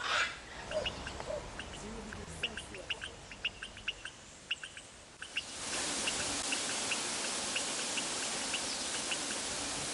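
Short high chirps repeating about once or twice a second, like small birds or frogs calling in forest. About five and a half seconds in, the steady rush of a waterfall starts suddenly and runs on under the chirps.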